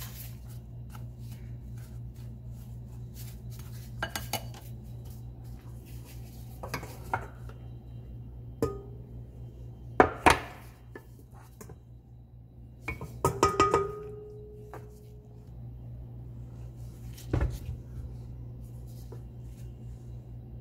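A stainless steel stand-mixer bowl and kitchen utensils being handled, giving scattered clinks and knocks. The loudest comes about ten seconds in, and a cluster around thirteen seconds in carries a short metallic ring. A steady low hum runs underneath.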